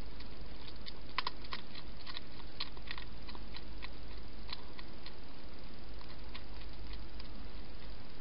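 Wild hedgehog eating from a dish: irregular small crunching clicks, thickest and loudest in the first three seconds, over a steady low hum and hiss.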